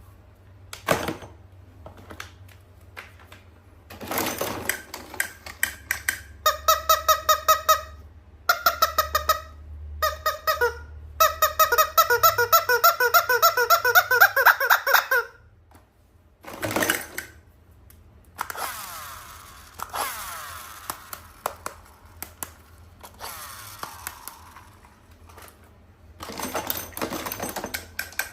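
A toy squeaking in quick repeated pulses, in three runs near the middle, amid clicks and rustling of toys and packaging being handled.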